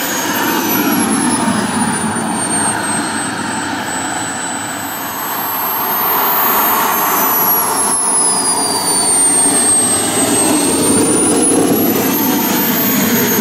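Miniature turbine engine of a radio-controlled F-16 model jet running as the model taxis: a steady rushing roar under a high whine that slides down in pitch and then back up twice, getting louder about five seconds in.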